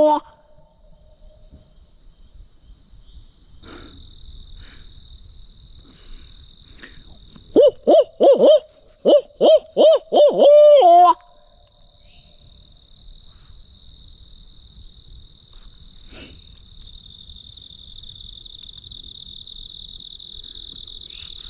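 Barred owl hooting: a run of about eight loud hoots a little past the middle, each note sliding down at its end. A steady high trill of evening insects runs throughout.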